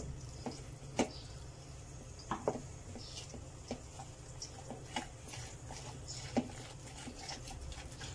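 A hand stirring and squeezing a thick flour-and-egg batter in a plastic bowl, with irregular light clicks and knocks.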